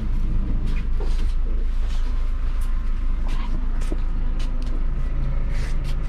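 Ambulance engine idling, heard from inside the rear compartment as a steady low hum, with a few light knocks and rustles on top.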